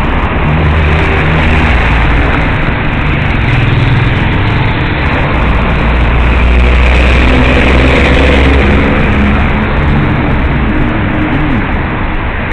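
City street traffic: car and bus engines running as they pass close by, loudest about halfway through.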